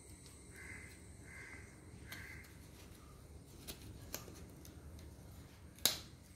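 Knife blade scraping and clicking against the husk and shell of a green coconut as the soft meat is scooped out, with one sharp click near the end. A bird calls three times in the first few seconds.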